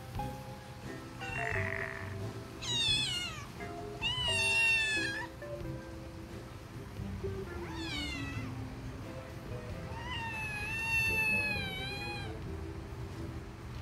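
A kitten meowing four times in high, falling calls, the last one long, over background music.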